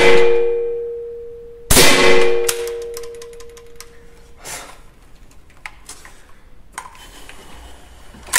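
Suppressed shots from an Armi Jager AP80 .22LR rifle: one right at the start and a second a little under two seconds in, each followed by a clear metallic ringing that fades over two to three seconds. Then a few light metallic clicks as the action is handled, with the rifle feeding badly.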